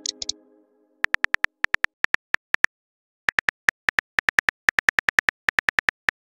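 Simulated phone-keyboard typing clicks, one short tap per letter in quick irregular runs with a brief pause midway, as a text message is typed out. A brief high blip comes at the very start.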